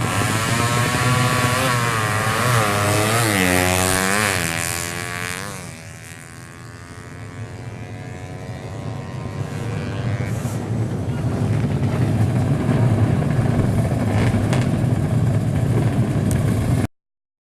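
Drag racing motorcycle accelerating hard through the gears, its engine note climbing and dropping back at each shift, then fading away after about five seconds. A rising rush of noise follows and stops abruptly near the end.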